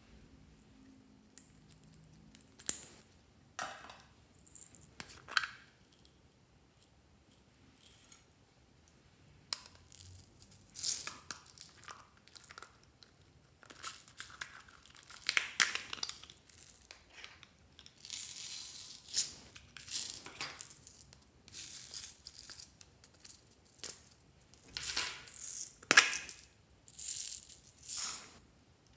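Small plastic containers being handled and opened with sharp clicks, and beads, sprinkles and glitter poured into a glass baking dish in short hissing spills, more often in the second half.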